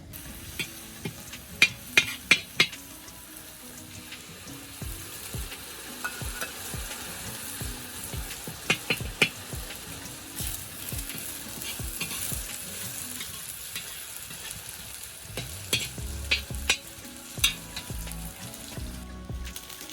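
Food sizzling as it fries in a pan, stirred with a utensil that knocks sharply against the pan in a few quick clusters.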